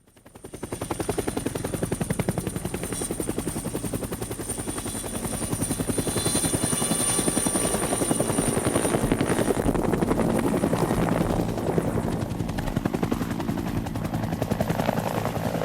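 Helicopter running steadily: a rapid, even beat of rotor blades with a thin high steady whine above it, fading in over the first second.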